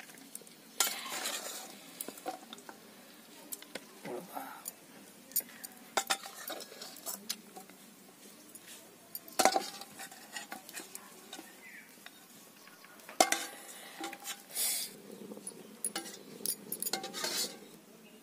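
Steel spatula scraping and clinking against a steel kadai as fried mutton pieces are scooped out, with scattered sharp metal knocks, the loudest about nine and thirteen seconds in.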